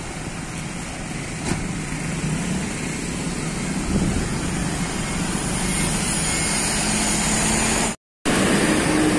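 Tour bus diesel engine running as a bus pulls out of the parking lot, getting gradually louder, with a brief cut-out about eight seconds in.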